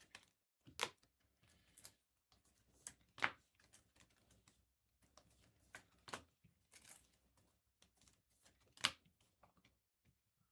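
Trading cards being handled and set down on a table: faint, irregular light clicks and taps with brief rustling, the sharpest taps about a second in, about three seconds in and near nine seconds in.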